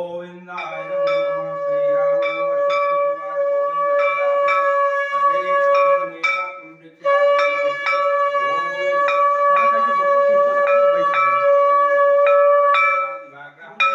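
A conch shell (shankh) blown in two long held notes, with a pause for breath about six seconds in, over a hand bell rung in quick strikes, about two or three a second, as is done during aarti.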